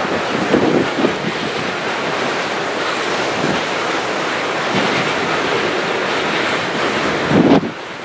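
Freight train cars rolling past, a steady rumble with uneven clatter of wheels on the rails. The sound drops off sharply near the end.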